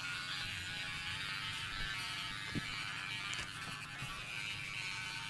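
Electric hair clippers running with a steady buzz while shaving a fade.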